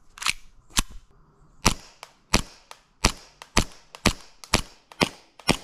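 Vorpal Bunny green-gas blowback airsoft pistol firing a string of about ten sharp shots, one roughly every half second.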